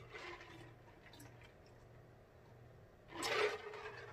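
A man drinking from a mug: faint sipping, then one short, loud slurp about three seconds in.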